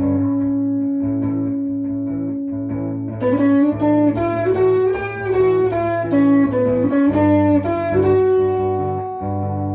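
Ibanez Gio electric guitar with dual humbuckers playing lead: a held note rings out and fades, then about three seconds in a melodic run of single picked notes begins, some bent or slid in pitch. A steady low note sounds underneath throughout.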